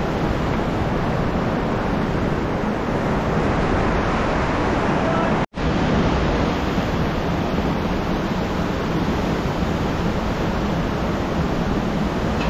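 Steady rushing of a fast river, an even roar of water, which cuts out for an instant about five and a half seconds in.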